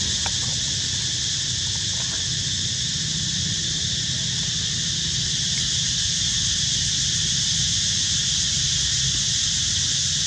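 Steady, high-pitched insect chorus with a low rumble underneath.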